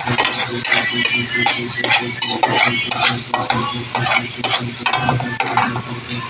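Chopped garlic sizzling in hot oil in a pan while a spatula stirs it, scraping against the pan in many quick strokes.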